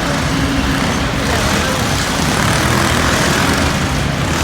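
Small single-cylinder mini bike engine running hard, a steady buzz that swells louder about three seconds in.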